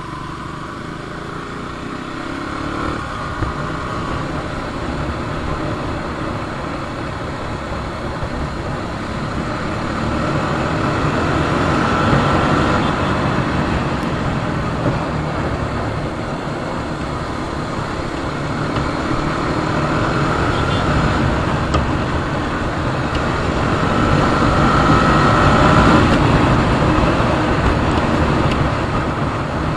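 Motorcycle engine running on the move. Its pitch and loudness rise and fall slowly as it accelerates and eases off, with the loudest stretches about twelve seconds in and again near the end.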